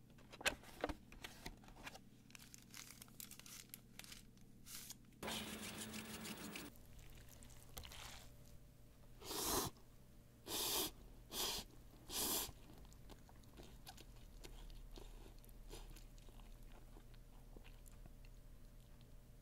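Faint rustling and handling of plastic packaging around a cup of instant ramen, then four short crunching, chewing bites about a second apart, over a low steady hum.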